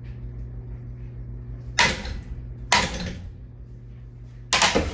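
Three hard blows striking a ceiling fan, about a second apart, the last a quick double hit near the end, over a steady low hum.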